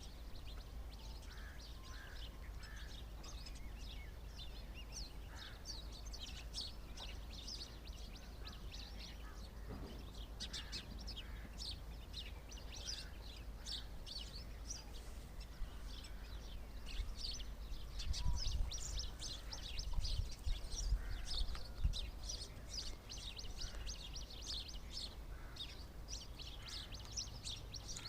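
A flock of small birds chirping, many short high chirps overlapping throughout, with a few lower notes mixed in. Several low rumbles come through between about two-thirds and three-quarters of the way in.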